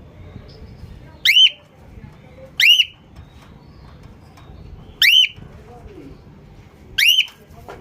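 Cockatiel giving four loud, shrill calls, each a short upward-sweeping whistle, spaced a second or two apart.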